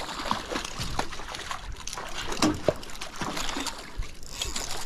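A hooked fish splashing and thrashing at the water's surface as it is reeled in close against the pier, with irregular clicks and knocks through it.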